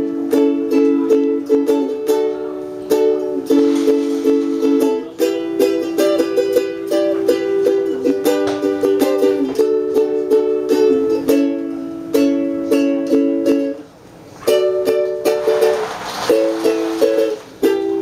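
Instrumental passage of a slow song, with no singing: a small acoustic string instrument strummed in a steady rhythm, moving between sustained chords. The playing briefly thins out about 14 seconds in.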